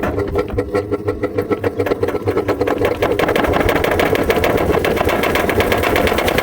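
Sanyo top-load washing machine in its spin cycle, giving an abnormal noise: a droning hum overlaid with a fast, regular rattling knock that quickens about halfway through as the drum picks up speed.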